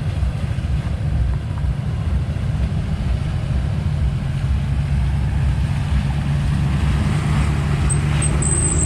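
Off-road truck engine running steadily.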